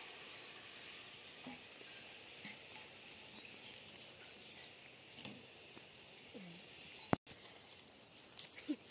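Outdoor ambience: a steady faint hiss with a few scattered short bird chirps. A sharp click about seven seconds in, followed by a split second of silence, is the loudest thing; a few smaller clicks come near the end.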